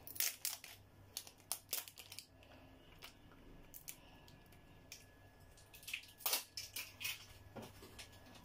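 A new plastic spice container being opened by hand: a cluster of short clicks and crinkles over the first two seconds, then a few more clicks a little before the end.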